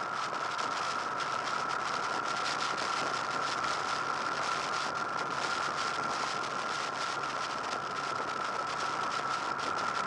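Steady wind rush over a bike-mounted camera on a Honda VFR800 VTEC motorcycle riding at a steady speed, with a constant high whine and the V4 engine running underneath.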